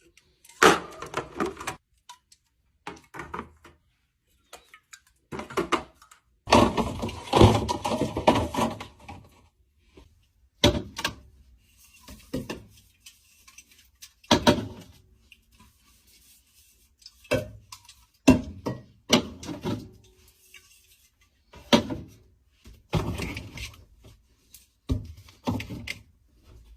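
A fridge being restocked: a run of separate knocks, clacks and thunks as containers, bottles and cans are set down and fridge doors or drawers are opened and shut, with a longer, busier stretch of clatter about a quarter of the way in.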